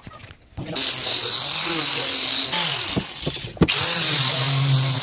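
Hand-held power sander with a round sanding disc running against pine wood. It starts under a second in and runs steadily, with a short click and dip about three and a half seconds in before it carries on.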